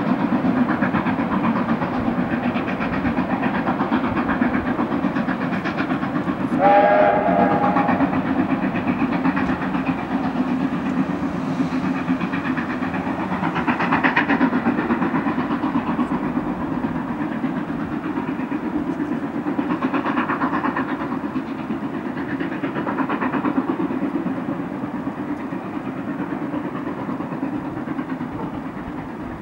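Ja 1271, a New Zealand Railways Ja-class 4-8-2 steam locomotive, and its train run past with a steady rumble that swells and eases a few times. About seven seconds in, the steam whistle gives one short blast of about a second.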